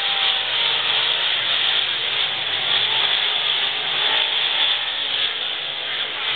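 Dirt late model race cars' V8 engines running hard around a dirt oval, heard together as a steady rasping din.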